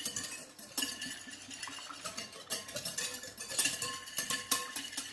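Wire hand whisk beating eggs in a bowl, the wires clicking and scraping against the bowl in quick, irregular strokes.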